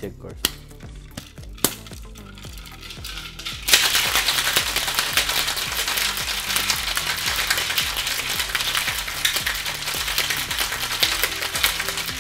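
Ice rattling hard inside a steel cocktail shaker as a juice mocktail is shaken. It starts after a couple of sharp clinks, about four seconds in, and then rattles loudly for the rest of the time. Background music plays underneath.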